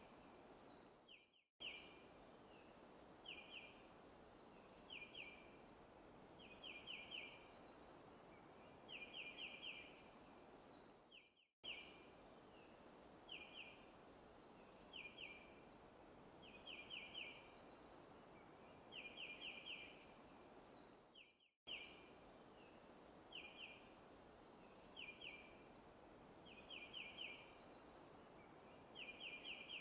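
Faint bird chirping in short groups of quick high notes every couple of seconds, over a steady soft forest background hiss. The track drops out briefly about every ten seconds and the same chirps repeat, a looped recording.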